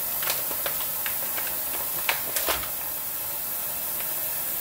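Kitchen faucet running in a steady hiss into a stainless steel sink. Over it come a few sharp crinkles and clicks of a plastic bag being handled, loudest around two to two and a half seconds in.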